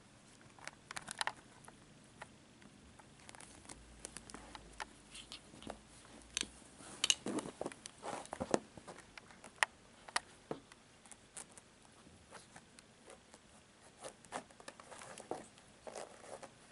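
A cat wrestling a feather wand toy on carpet: irregular soft scuffs, rustles and light taps from its paws, claws and the toy, loudest in a flurry about seven to nine seconds in.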